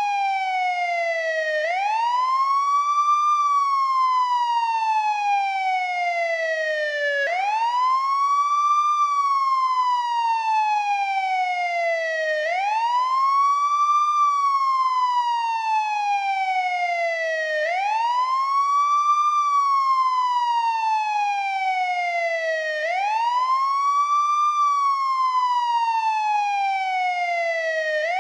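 American police siren sounding the wail tone: a quick rising sweep followed by a slow falling glide, repeating about once every five seconds with no break.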